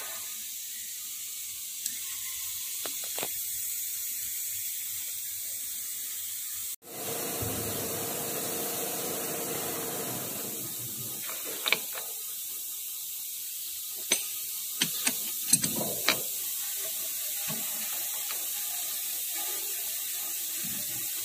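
Steel gear and lathe chuck knocking together: a scatter of sharp metallic clicks and knocks, most of them clustered a little past the middle, as the gear is handled and fitted against the three-jaw chuck, over a steady hiss.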